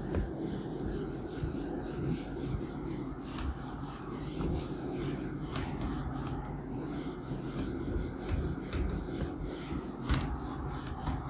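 Whiteboard eraser rubbing back and forth across a whiteboard in uneven strokes, wiping off marker writing.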